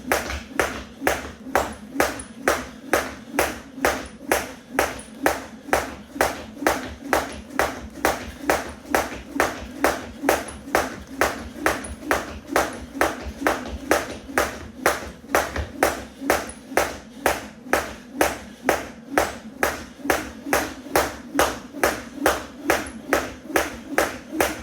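A 1 lb weighted jump rope slapping the floor with each turn during steady skipping, in an even rhythm of a little over two strikes a second.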